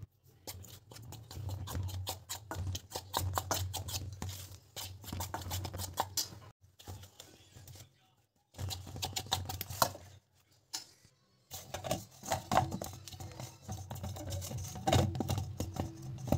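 Hand rubbing flour and oil together and kneading dough in a steel bowl: dense scratching and rustling, broken by short pauses about seven and eleven seconds in.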